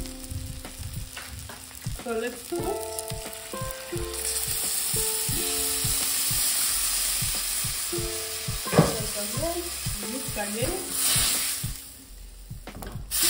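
Beef tripe frying in a steel wok, with a spatula scraping and stirring. About four seconds in, liquid is poured into the hot pan and a loud, steady sizzle starts. The sizzle dies down near the end.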